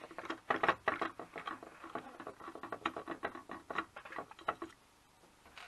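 Irregular small clicks and scrapes of a Torx screwdriver turning a screw out of a hard drive's magnet bracket, metal on metal. They stop a little before the end.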